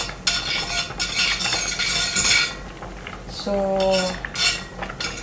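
A utensil stirring and scraping around a stainless steel pot as butter melts in it, with a short steady hum about two-thirds through.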